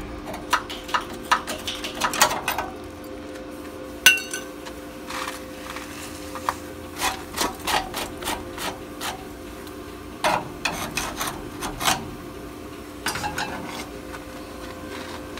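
Irregular metal knocks, taps and scrapes of hand tools working the rusted rear frame section of a 1958 VW bus, over a steady low hum.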